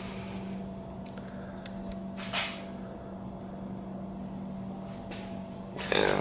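Handling noises from work on parts: a faint click, then a sharper knock about two and a half seconds in, and a louder short sound near the end, over a steady low hum.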